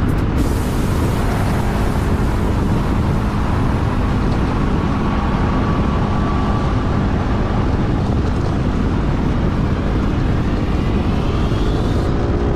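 Yamaha Majesty S scooter's single-cylinder engine running through an aftermarket RPM exhaust while riding at city speed, a steady exhaust drone whose pitch rises near the end as the throttle opens.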